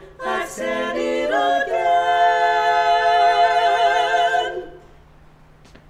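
Four women singing a cappella in close barbershop harmony: a few short notes, then a long final chord held with vibrato that ends about four and a half seconds in.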